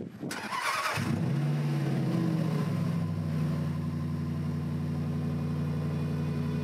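A car engine starting: a short burst of noise, then the engine catches about a second in and settles into a steady idle, its pitch easing slightly lower over the next second or two.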